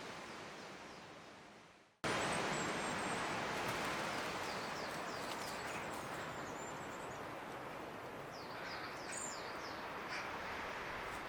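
A robin singing in short, high, thin phrases of quick notes over a steady background hiss, with a busier burst of notes near the end. The sound fades out and then cuts back in abruptly about two seconds in.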